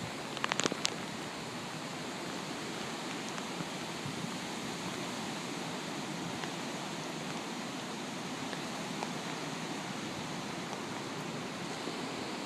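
Hurricane wind and rain making a steady rushing noise, with a few sharp ticks about half a second in.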